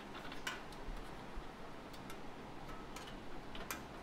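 A few irregular light metal clicks, the loudest about half a second in and near the end, as a brass LPG hose adapter is screwed into the threaded fitting of a portable butane stove's steel body.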